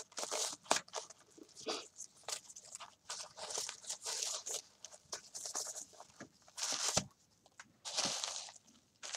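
Tissue paper crinkling and rustling in irregular bursts as a ribbon-tied, tissue-wrapped package is untied and handled by hand.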